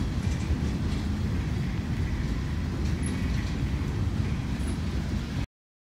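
Freight train rolling past, its boxcars making a steady low rumble on the rails, which stops suddenly about five and a half seconds in.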